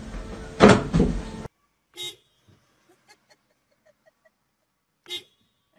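A loud knock or clatter about half a second in. Then two short car horn toots, about three seconds apart, with near quiet between them.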